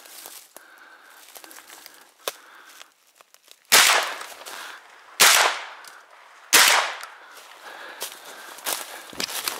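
Three shotgun shots about a second and a half apart, each with a short echoing tail. Footsteps rustle through dry leaf litter before the shots and again near the end.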